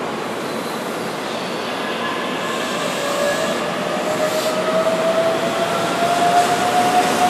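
Keihan 9000-series electric train pulling away from the platform. Its traction motors whine in several tones that climb slowly in pitch over the running noise, growing louder as it gathers speed.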